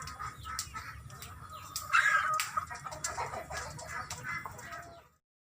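Chickens clucking in a string of short calls, with a louder call about two seconds in; the sound cuts off abruptly near the end.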